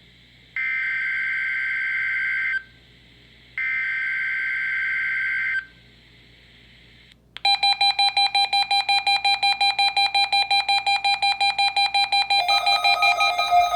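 NOAA Weather Radio SAME header tones: two harsh, buzzy digital data bursts about two seconds long with a one-second gap, the last of the three-burst header for a Required Weekly Test. After a short pause, a weather radio's alert sounds as a rapid electronic beeping, about eight pulses a second, and a second radio's alarm at a different pitch joins near the end.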